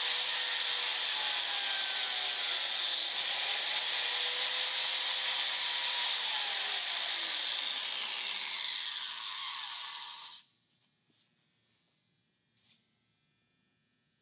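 DeWalt biscuit joiner running while it cuts a biscuit slot into the mitred end of a wooden bar rail. Its pitch dips briefly about three seconds in, then falls steadily as the motor winds down from about six seconds in, and the sound stops about ten seconds in.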